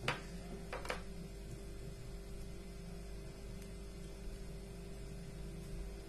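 Quiet handling of wires and a small plastic rotary switch as a power-cord wire is fitted onto its terminal, with two short sharp clicks about a second apart near the start over a faint steady hum.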